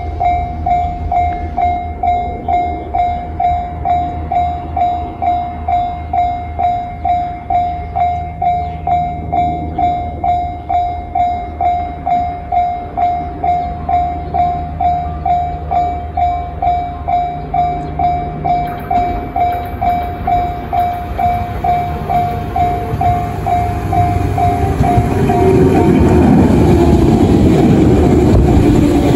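Level-crossing warning bell ringing in a steady ding-ding, about two strokes a second, as a JR 115 series electric train approaches. About 25 seconds in, the bell stops and the train's running noise swells as it comes past. Its whine falls in pitch as it slows into the station.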